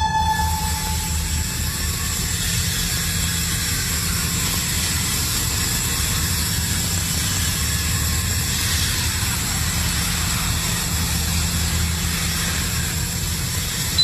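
Steady sci-fi machine hum of a cartoon energy-bath repair chamber: a continuous low rumble with a high whine and hiss, opening with a short electronic beep as the panel is pressed.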